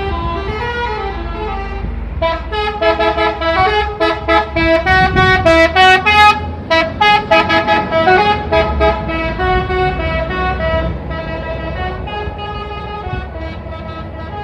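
A multi-tone telolet air horn on a Pandawa 87 bus plays a Pakistan-style melody in quick staccato notes, loudest in the middle and softer towards the end, over a low steady rumble.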